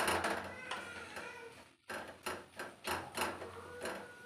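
Wooden spatula scraping and knocking against an aluminium kadhai while stirring potato and cauliflower sabzi, a sharp knock at the start, then a quick series of taps and scrapes about two seconds in. A faint steady tone sits in the background.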